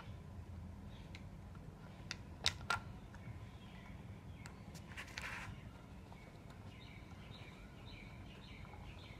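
A plastic bottle being handled while a rubber balloon is stretched over its neck: a few sharp clicks and taps, the loudest two close together about two and a half seconds in, and a brief scuffing rustle about five seconds in, over a steady low rumble.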